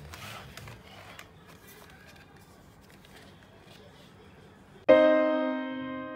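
A few faint clicks over low background noise, then a piano chord struck about five seconds in, ringing and slowly fading.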